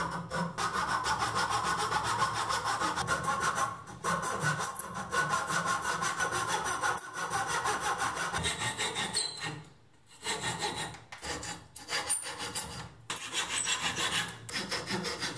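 Hand saw cutting a slot into the end of a wooden dowel held in a vise, in rapid back-and-forth strokes with a few brief pauses, the longest about ten seconds in.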